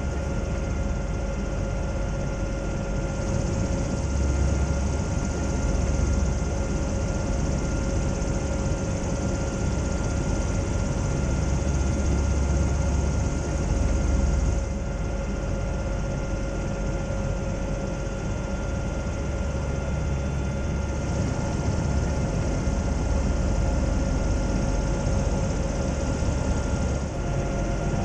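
Steady drone of a Zeppelin NT airship's engines and propellers heard in the passenger cabin, with a constant rush of air. The sound shifts slightly in tone a few times.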